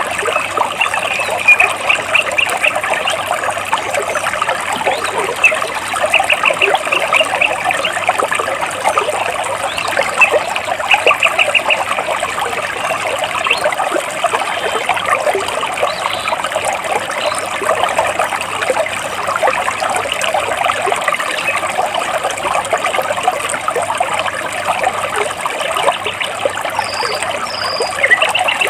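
Stream water babbling and trickling between rocks, steady throughout. Now and then a bird's rapid trill of quick chirps sounds over it, several times, with two brief higher notes near the end.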